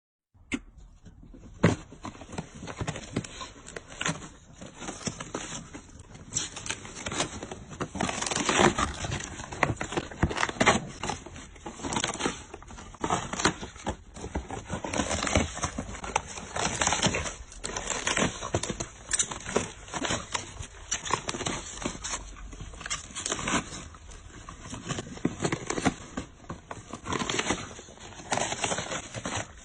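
Packaging being handled and torn open: irregular scraping, crackling and tapping.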